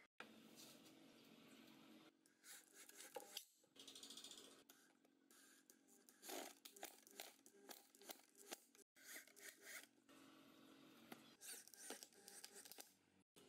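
Faint electric drill driving screws up through a steel-tube frame into a wooden armrest, in short bursts of whirring with a scratchy crunch as each screw bites into the wood, broken by several abrupt cuts.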